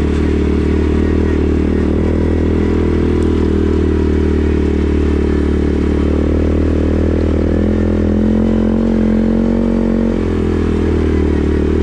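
CFMoto 450S ATV's single-cylinder engine running steadily under way. Its note rises about six seconds in and drops back about ten seconds in.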